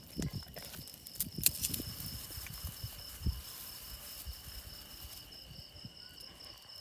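Crickets chirping steadily in a high, pulsing trill, with a few soft knocks and rustling clicks in the first few seconds.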